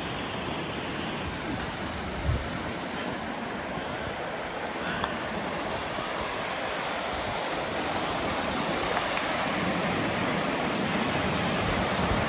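Glacier-fed mountain stream rushing over rocks in small cascades, a steady splashing that grows louder toward the end as the stream comes closer. A single low thump about two seconds in.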